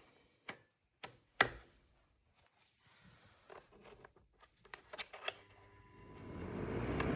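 A few sharp clicks and knocks of a portable fan heater being handled and switched on, the loudest about a second and a half in. From about six seconds in its fan starts up and grows into a steady rushing whoosh with a low hum.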